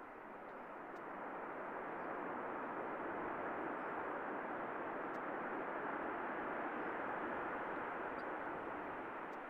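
Antonov An-225 Mriya's six Progress D-18T turbofan engines running as the aircraft rolls along the runway: a steady rushing jet noise that swells over the first couple of seconds and eases off near the end.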